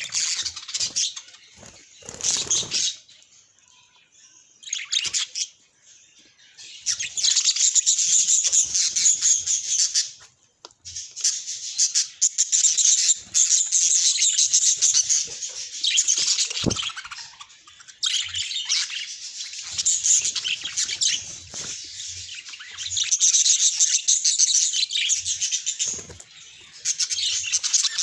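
Budgerigars chattering and warbling in long runs of rapid, high chirps, with brief pauses between the runs.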